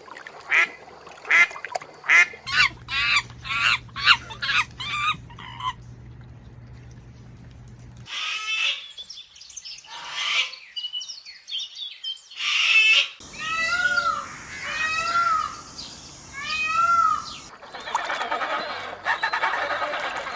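Ducks quacking in a fast run of about a dozen calls, then a stretch of other squawks and four drawn-out honk-like calls. It ends in a dense chorus of many birds.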